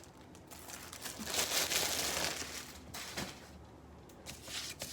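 Packaging being handled, crinkling and rustling, loudest from about one to two and a half seconds in, then quieter scattered rustles.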